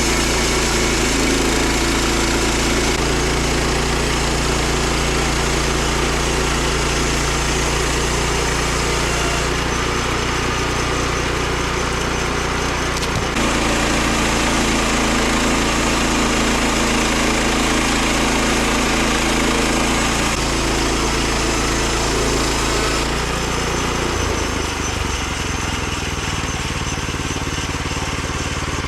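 Small gasoline engine of a Woodland Mills HM122 bandsaw mill running steadily, with its sound changing about halfway through and again near the end.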